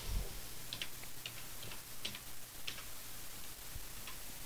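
Faint computer keyboard keystrokes, a dozen or so irregular light clicks, as letters are typed.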